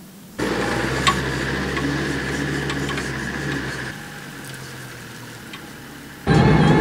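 Land Rover Defender Td5 diesel engine running at low speed close by, with light ticks over the steady engine sound. About four seconds in it drops to a fainter, more distant level, and near the end a loud, steady driving sound cuts in.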